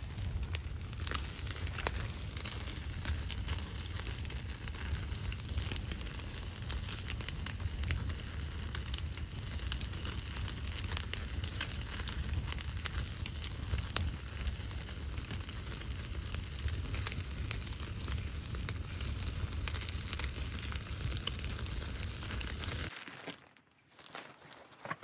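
Wood fire crackling steadily, with many small pops over a low rumble; it cuts off suddenly about 23 seconds in.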